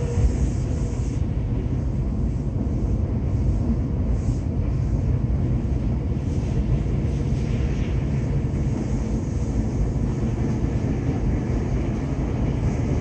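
A Tokyo Metro 7000-series subway train running between stations, heard from inside the passenger car: a steady, even rumble of the running train.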